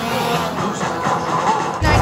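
Music, with a heavy deep bass coming in suddenly near the end.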